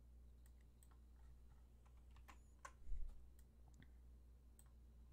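Faint, irregular clicks of a computer mouse and keyboard, with a soft low bump about three seconds in.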